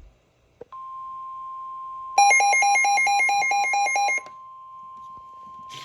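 NOAA Weather Radio warning alarm tone: after a click, a steady single-pitched tone comes on under a second in and holds. From about two seconds in, a louder alert beeping of about five beeps a second, alternating between two pitches, sounds over it for about two seconds. Together they signal that a severe thunderstorm warning is being issued.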